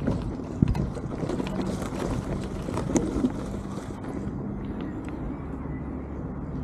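Bicycle tyres rolling over rough dry grass with rattling and clicking from the bike, which turns into a smoother, steadier rolling sound as the bike moves onto the paved path about four seconds in.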